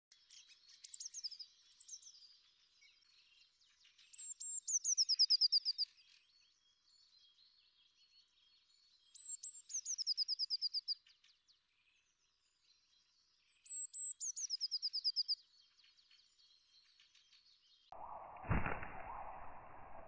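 A songbird singing short phrases of rapid notes that slide down in pitch, each about a second and a half long, repeated every four to five seconds. Near the end it cuts suddenly to a lower rustling noise with a single thump.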